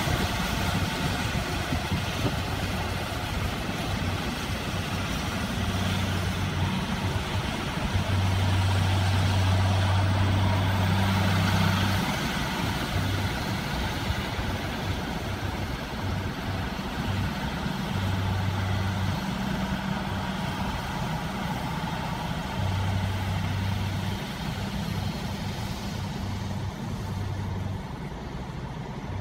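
Massey Ferguson 6290 tractor running under way, pulling a Krone Comprima round baler-wrapper: a steady diesel engine sound with the baler's machinery noise, growing a little fainter near the end as it moves off.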